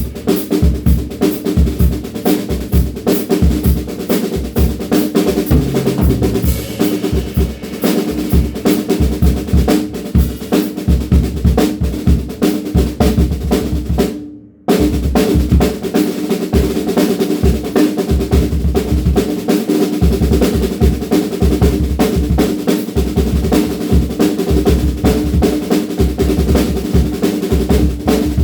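DW Frequent Flyer drum kit played in a steady groove, with bass drum, snare and cymbals hitting in an even rhythm and a drum ring sustaining underneath. The playing breaks off briefly about halfway through and resumes suddenly.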